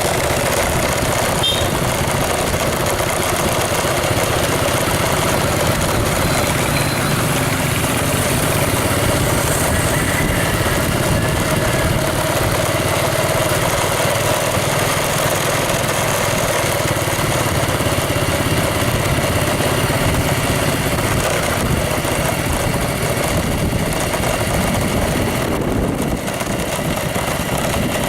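A motor vehicle's engine running steadily under a loud, even rush of noise.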